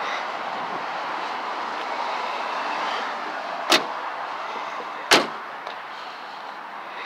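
Two sharp knocks about a second and a half apart, over a steady background noise.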